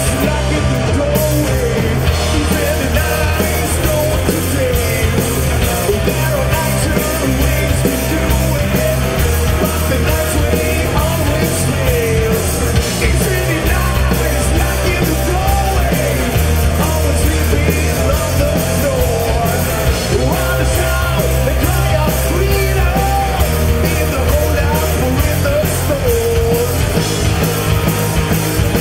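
Heavy rock band playing live and loud: electric guitars and a drum kit, with a singer's vocals over them.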